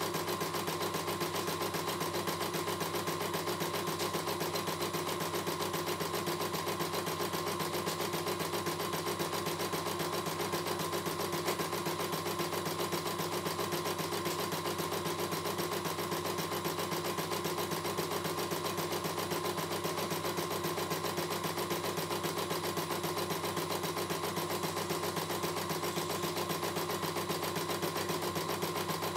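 CNY E900 computerized embroidery machine stitching a design, its needle running in a fast, even rhythm over a steady motor hum.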